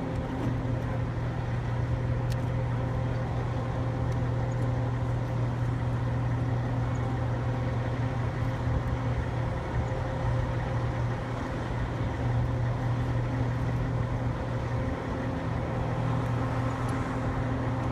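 Steady low drone of running machinery, with a fainter held tone above it, unchanging throughout.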